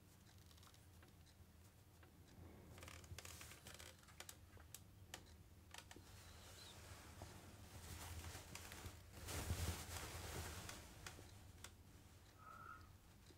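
Faint cloth rustling with small clicks and scratches as hands handle fabric and a needle and thread, over quiet room tone; the rustle is loudest about two-thirds of the way in, and a brief faint chirp comes near the end.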